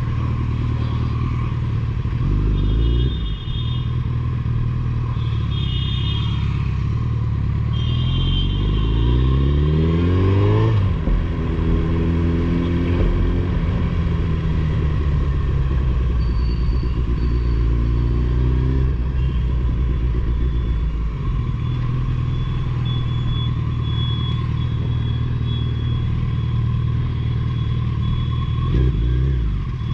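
Suzuki Hayabusa's inline-four engine running through an aftermarket Two Brothers Racing exhaust while riding in traffic. The revs climb from about eight to eleven seconds in as the bike accelerates; otherwise the engine runs steadily.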